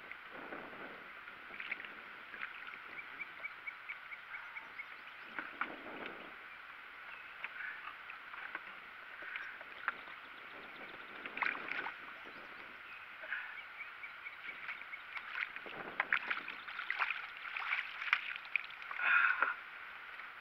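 Water splashing and slapping around a small fishing boat as a hooked channel catfish thrashes near the surface, with scattered knocks and clicks, more of them in the second half; high chirps and short trills run throughout.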